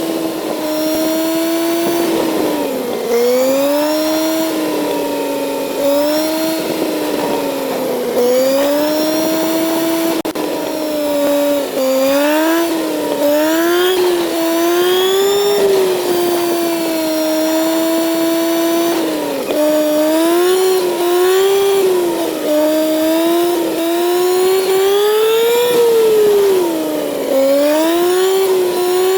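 Kawasaki Z900 inline-four engine pulling the bike along. The revs rise and fall with the throttle, and the pitch drops suddenly several times at gear changes.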